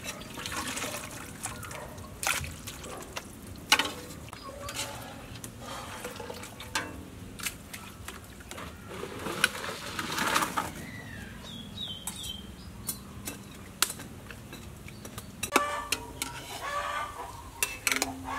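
Kitchen sounds of water splashing, with scattered sharp clinks and knocks of utensils and bowls. Chickens cluck near the end.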